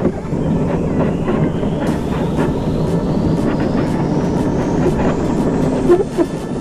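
Luge cart rolling down the track: a steady rumble with quick clattering clicks from the wheels.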